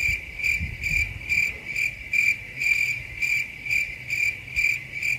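Cricket chirping: a steady run of high, evenly spaced chirps, about two and a half a second.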